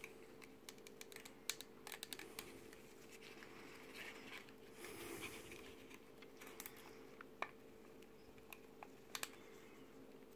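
Small plastic model-kit parts clicking and tapping as gloved fingers press a part into a plastic car body shell, with a brief rustle of handling about halfway through.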